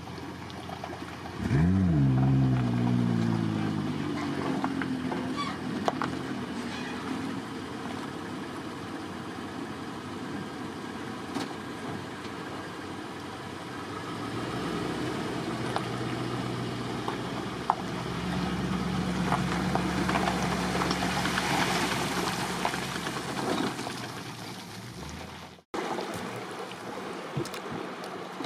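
A vehicle engine running. About a second and a half in, a loud note sets in and quickly drops in pitch, then the engine runs steadily until it cuts off suddenly near the end.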